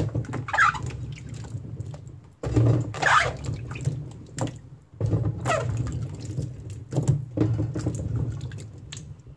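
Water splashing and dripping as handfuls of green plums (maesil) are scooped out of a basin of vinegar water, in four bouts about two and a half seconds apart.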